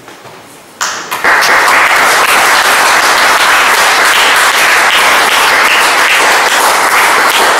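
Audience applauding at the close of a talk, starting suddenly about a second in and continuing steadily as a dense, loud clatter of clapping.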